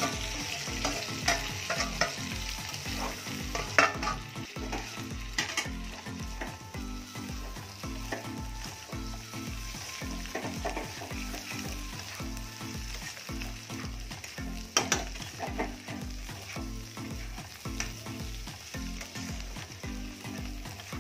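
Vegetables sizzling in hot oil in a kadai, stirred with a metal spatula that scrapes and now and then knocks sharply against the pan. A steady low beat of background music runs underneath.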